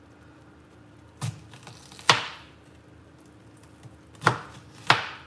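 Kitchen knife chopping a Vidalia onion into chunks on a cutting board: four sharp chops, one about a second in, one just after two seconds, and two close together near the end.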